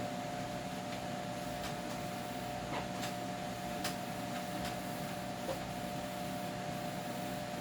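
Steady electrical appliance hum with a constant tone, with a few faint light clicks and knocks scattered through it.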